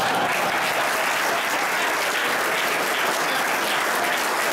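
Audience applauding steadily after a recited poem.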